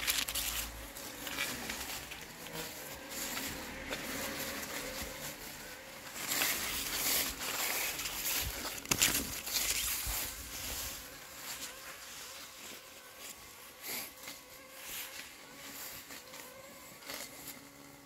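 Landxcape LX790 robot lawn mower running, its motor giving a faint steady whine under rustling and crackling from wet weeds and fallen leaves. It grows quieter after about halfway.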